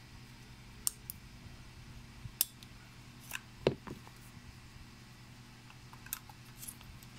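Sharp plastic clicks and taps from a DJI Osmo Action camera and its removable battery being handled, with the battery slid back into the camera body near the end. About eight clicks, the loudest a little past the middle, over a low steady hum.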